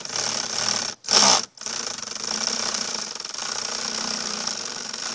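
Power drill with a long Phillips bit running, backing a screw out of a boat's top cap. It stops briefly about a second in, gives a short louder burst, then runs on steadily.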